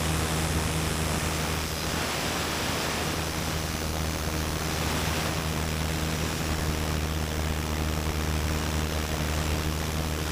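Pneumatic needle scaler running steadily, its needles hammering concrete build-up off the face of a concrete pump piston cup: a loud, continuous buzzing chatter.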